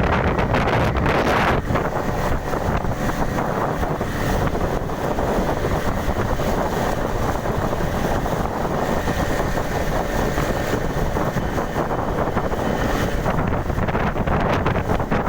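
A 15 hp fishing-boat outboard engine running steadily under test, with wind buffeting the microphone.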